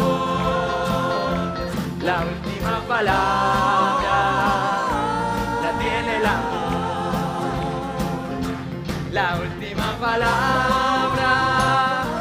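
A group of voices singing long held notes with vibrato over a live band with a moving bass line: the closing of a stage-musical song.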